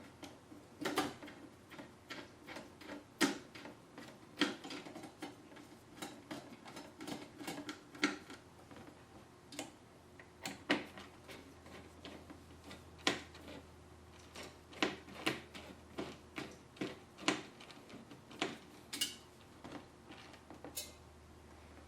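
Screwdriver tightening the spring-loaded mounting screws of a CPU air cooler: a run of irregular small clicks and ticks. Clicking is expected from these screws once they are tight enough.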